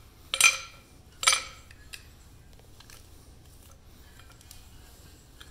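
Metal snow-stop blocks for a standing seam roof being handled and set down, clinking together twice with a short ringing sound, then a few faint light clicks.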